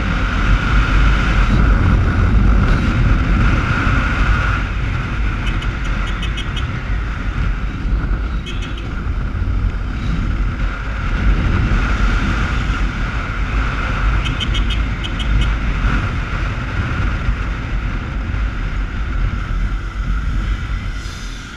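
Motorcycle riding along at speed with wind buffeting the helmet-mounted microphone, its engine running steadily under the wind noise.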